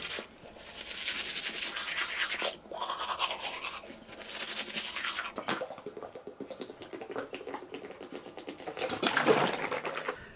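Toothbrush scrubbing teeth in quick back-and-forth strokes, a little louder for a moment near the end.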